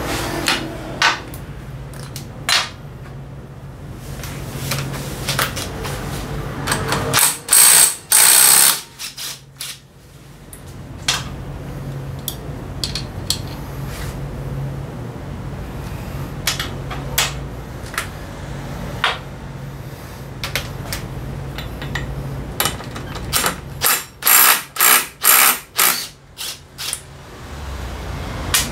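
Tools working on a Kymco Xciting 300 scooter's belt drivetrain: ratchet-like clicking and metal handling over a steady low hum, with two clusters of short, loud rattling bursts, one about eight seconds in and a run of about six near the end.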